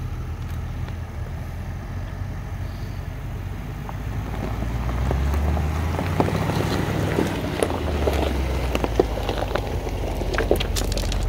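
Range Rover Sport crawling slowly over a rocky gravel trail: a low engine and drivetrain rumble, with stones crunching and popping under the tyres from about four seconds in as the rumble gets louder.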